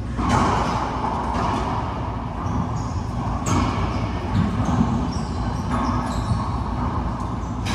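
Racquetball rally: the ball struck by racquets and hitting the court walls, a sharp crack every second or two, echoing in the enclosed court.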